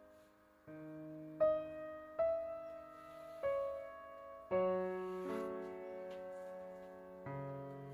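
Background instrumental music with piano chords, each chord struck and fading, changing every second or so.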